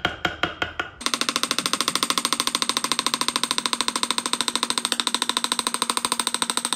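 A small metal chisel being tapped into wood by hand: a few sharp strikes about four a second, then, about a second in, a fast even run of light taps, about a dozen a second, with a metallic ring.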